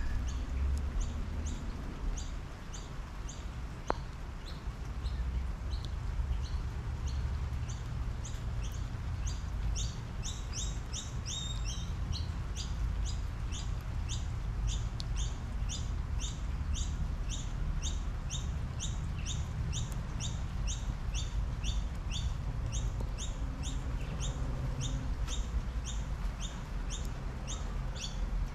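Steady rain falling, with a low rumble beneath it. Over this, a bird calls one short, high chirp over and over, about two to three times a second. A single sharp tick comes about four seconds in.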